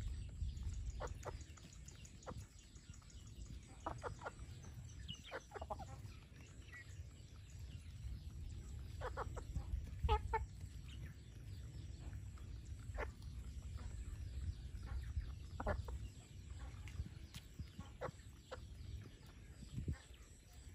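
Chickens clucking in short, scattered calls while they forage, over a steady low rumble.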